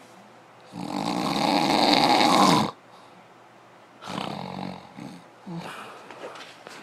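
Loud, rasping, snore-like noises: one long one about a second in that grows louder over two seconds and cuts off, then a shorter, quieter one and a few small ones near the end.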